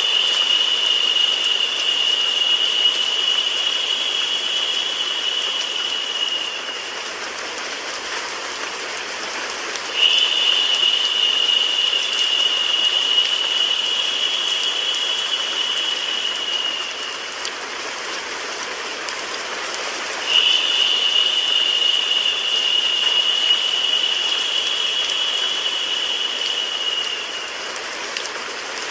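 Steady rain-like hiss of a white-noise and rain sleep track. A high, steady whistle-like tone comes in sharply three times over it, each time holding for about seven seconds before fading, with a few seconds of plain hiss between.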